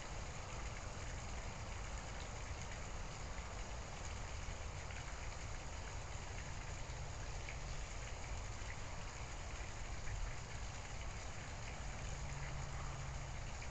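Steady, even hiss of background noise with a few faint ticks.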